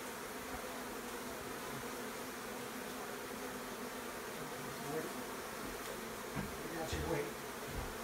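Steady buzzing hum of a large honeybee colony with its comb exposed, with a few low thuds near the end.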